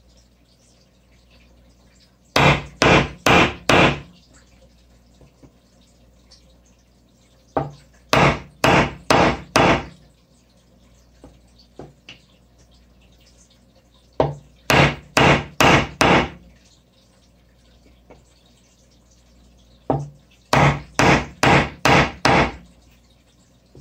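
Brass-headed carving mallet striking the handle of a chisel, driving it into wood: four runs of five to seven sharp taps, two to three a second, with pauses between.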